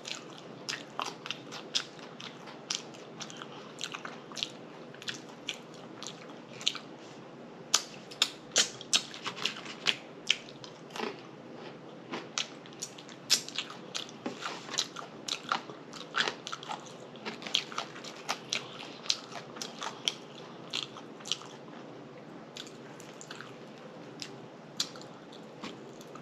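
Close-miked eating sounds: chewing and lip smacking with many sharp, wet clicks at an irregular pace, several a second, as whiting fish is eaten.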